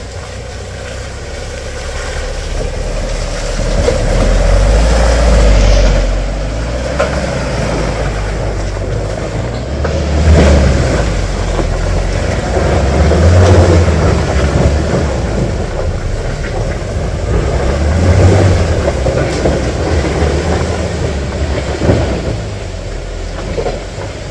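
Off-road 4x4's engine revving hard under load, surging up and down several times as the driver keeps his foot on the throttle to climb a slippery track.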